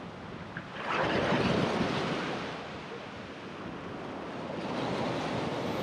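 Ocean surf washing against a rock ledge. One wave surges in about a second in and fades, and another builds near the end, with wind buffeting the microphone.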